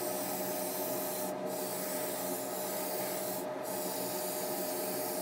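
Airbrush hissing steadily at a surfacer-coated plastic spoon, the hiss cutting out briefly twice, with a steady hum underneath.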